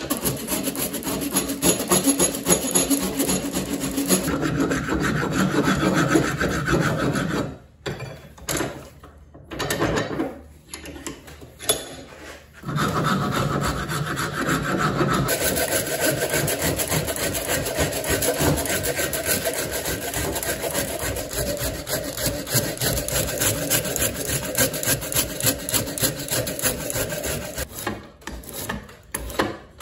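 Wood rasp scraping in rapid back-and-forth strokes along a wooden hatchet handle clamped in a vise, shaping it by hand. There are a few brief pauses in the strokes about eight to twelve seconds in.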